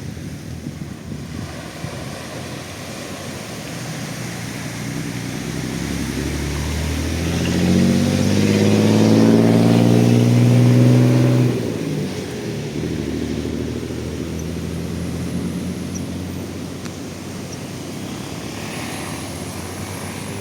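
A motor vehicle's engine passes, growing loud with its pitch rising as it accelerates, then cutting off sharply about halfway through. Underneath is a steady wash of surf and wind noise.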